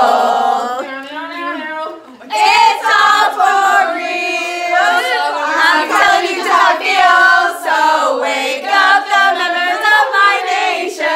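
A group of teenagers singing a slow song together, several voices at once, with a brief break about two seconds in.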